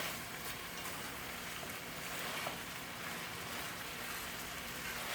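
Chicken wings sizzling steadily in a pan, an even hiss, with a faint low hum underneath.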